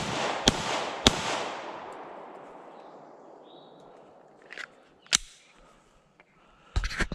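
Glock 19 Gen 4 9mm pistol firing two quick shots about half a second apart, on the echo of the shot before, with the reports ringing back through the trees and fading over a couple of seconds. A single sharp click comes about five seconds in, and a few small handling clicks near the end.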